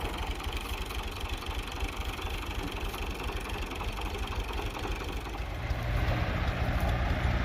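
Tractor engine running with a fast, even low chug while driving a wheat thresher. About three-quarters of the way through, the sound grows louder and a steady hum comes in.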